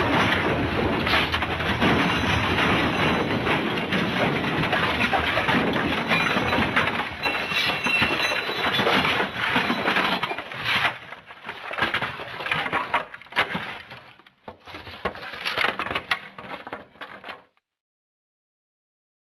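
The MGM 'elephant smash' crash sound effect: a long, dense crash of breaking and smashing for about eleven seconds, then scattered clattering crashes that tail off and stop abruptly, followed by a couple of seconds of silence.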